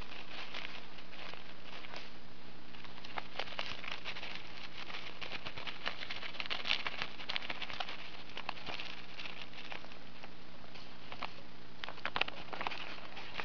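Dwarf hamster chewing and tugging at tissue paper on newspaper: a steady run of small, irregular paper crackles and rustles, with busier clusters about halfway through and near the end.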